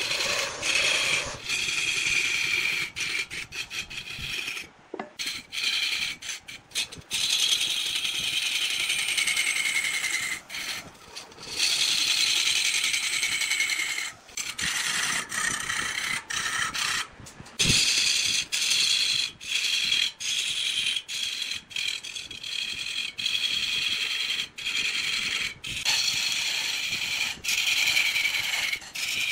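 A turning tool cutting wood on a spinning lathe: a high scraping hiss with whistling tones that slowly fall in pitch. It runs in passes of several seconds, broken by brief gaps as the tool lifts off the wood.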